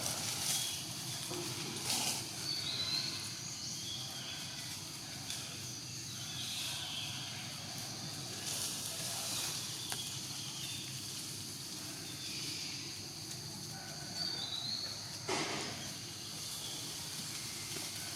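Outdoor natural ambience: a steady high hiss with faint, short chirps scattered through it and a few brief rustles or knocks, the clearest about fifteen seconds in.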